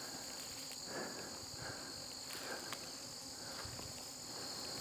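Steady insect chorus, a constant high-pitched drone in two bands, under an otherwise quiet woodland background.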